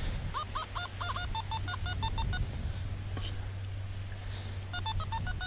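Nokta Makro Simplex metal detector beeping: quick runs of short tones at a couple of different pitches, some rising, as the coil is swept back and forth over a target in the sand. One run fills the first couple of seconds and another comes near the end.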